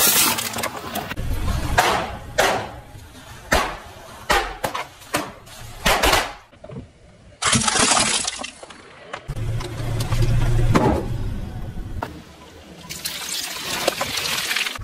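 Car tyre rolling over and crushing small objects: a string of sharp cracks and crunches as brittle plastic, candy and crystals break under the wheel, with a low rumble of the tyre at times.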